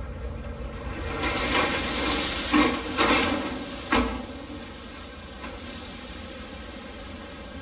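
Vehicle driving over a rough gravel road, its steady running noise broken in the middle by a few seconds of clattering and rattling, with three sharp knocks, the last one ending the burst.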